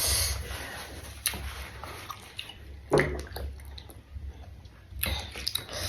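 Close-up wet chewing of raw vegetables, with a few sharp crunches and mouth clicks.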